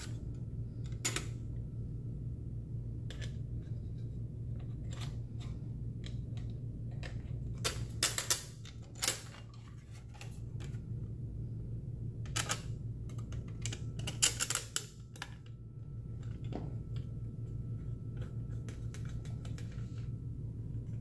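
Scattered light clicks and clacks of a fender eliminator's license plate panel and small metal mounting brackets being handled and fitted together by hand, loudest in a few clusters around the middle, over a steady low hum.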